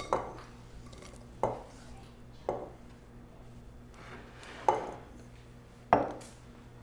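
Kitchen knife and bowl knocking on a wooden cutting board as freshly cut corn kernels are scraped into the bowl: five separate clacks about a second apart, the loudest two near the end.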